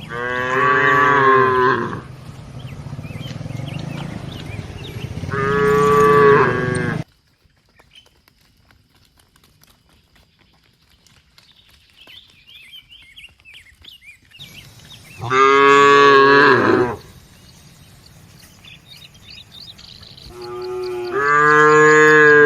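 Cattle mooing: four long, loud moos, with a near-quiet gap of several seconds in the middle.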